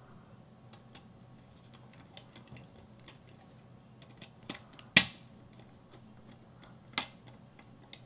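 Small screwdriver working the metal terminal screws on a doorbell chime's terminal board: faint scratchy clicks and ticks, with one sharp click about five seconds in and another near seven seconds.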